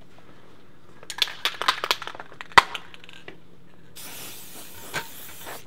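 Aerosol spray can shaken, its mixing ball rattling in quick irregular clicks that end in one loud click, then about four seconds in a steady hiss of spray lasting about a second and a half.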